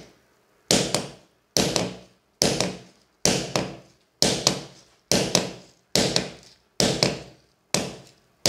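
Pliers used as a hammer, striking the end of a screwdriver held to a wall to chip out a hole for a screw: about nine sharp metal-on-metal knocks, evenly spaced a little under a second apart, each ringing briefly.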